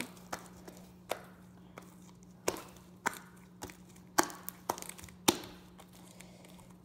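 Sticky homemade fluffy glue slime being kneaded and pulled apart by hand, giving irregular sharp wet clicks and pops every half second or so, the loudest a little after five seconds in. The slime is still sticky on the hands.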